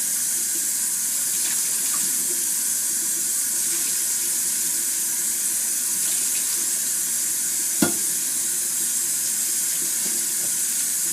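Kitchen tap running steadily into a sink as a pan is rinsed out, with a single sharp knock about eight seconds in.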